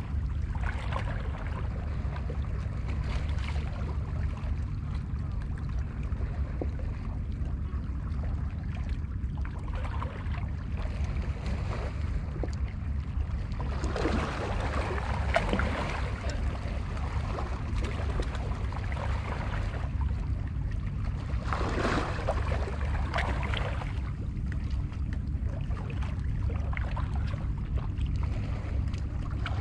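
Small sea waves washing and splashing against the boulders of a rock breakwater, with two larger washes about halfway through and about three quarters of the way in, over a steady low rumble.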